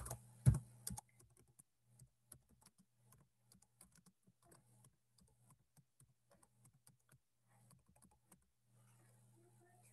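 Computer keyboard typing: faint, irregular keystrokes, with a couple of louder taps in the first second.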